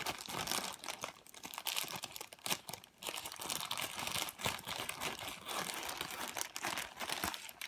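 Plastic packaging crinkling and rustling with many quick, irregular crackles as it is handled, the sound of a squishy grab bag being opened and rummaged through.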